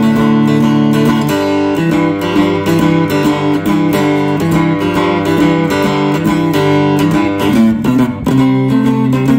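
Three-string ammo can guitar (a cigar-box-style guitar with a magnetic pickup), played plugged in. It is being strummed in chords that change every second or so.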